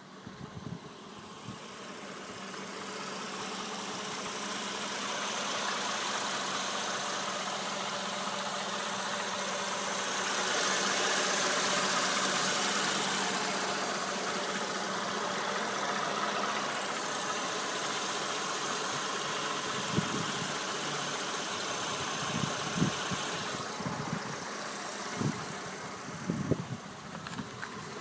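Mercedes-Benz M272 V6 petrol engine idling warm, after about ten minutes of warm-up, with the knock that the owner is recording. Several sharp thumps stand out near the end.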